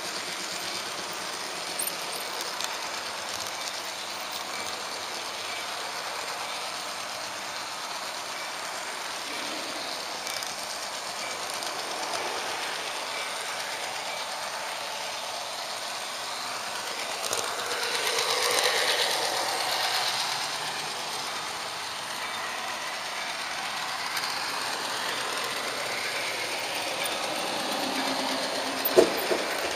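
HO-scale Märklin model train running on its track: a steady mechanical whir and rattle of the small motor and wheels on the rails. It swells louder for a few seconds past the middle, and there is a sharp click near the end.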